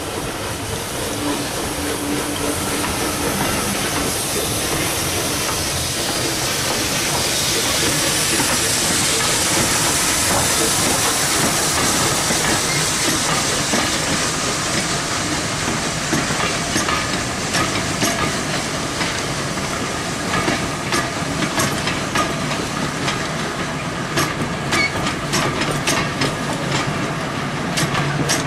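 Steam locomotive passing close by with a train of coaches: its steam hiss and exhaust swell to a peak about ten seconds in. The coaches then roll past, their wheels clicking over the rail joints more and more often.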